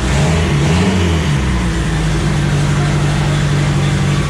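Turbocharged MerCruiser 140 four-cylinder engine running on an open exhaust, just a short downpipe and elbow with no muffler. It revs briefly about a second in, then idles steadily.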